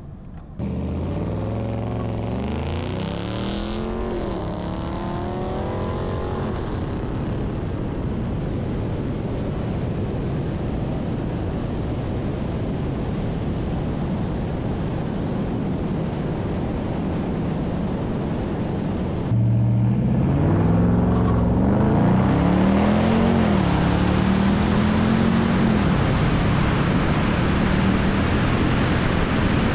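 Car engine accelerating hard at full throttle in a drag race: its pitch climbs and drops back at each upshift. Heavy wind and road rush run underneath. The sound cuts abruptly twice, and the pull through the gears starts again after the second cut.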